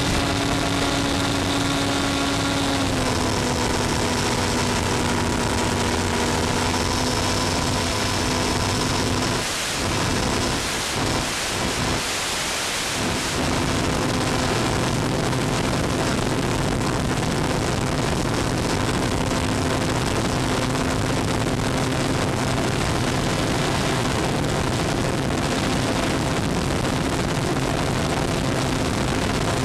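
Electric motor and propeller of an FPV model plane, heard over the analog video link's audio channel under heavy static hiss; the motor's pitch drops about three seconds in as the throttle comes back. The hiss breaks up briefly around the middle, where the weak link loses signal.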